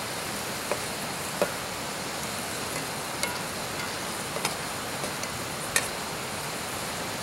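Onions frying in a cast iron skillet on a canister gas stove: a steady hiss of sizzling and burner, with a metal spatula clinking and scraping against the pan a handful of times.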